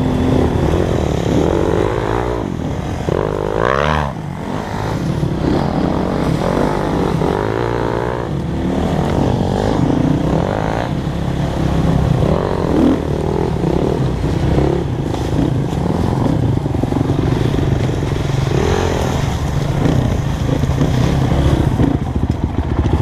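Dirt bike engine being ridden, revving up and down, its pitch rising and falling again and again with the throttle.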